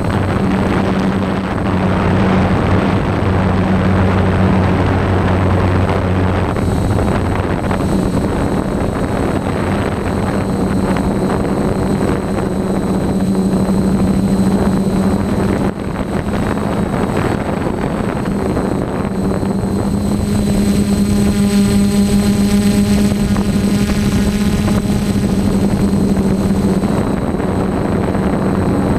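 DJI F450 quadcopter's electric motors and propellers running steadily in flight, recorded on board, a continuous buzzing hum. From about two-thirds in, a stack of higher whining tones joins for several seconds.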